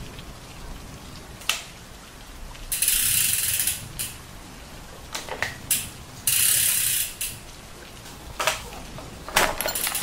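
Ratcheting clicks in two bursts of about a second each, with a few separate sharp metallic clicks in between, as a bicycle pedal is threaded onto the crank with a pedal wrench.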